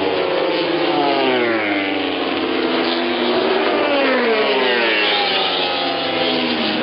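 Several MotoGP race motorcycles passing at race speed, their 800cc four-stroke engines revving hard, with overlapping engine notes sliding down and up in pitch.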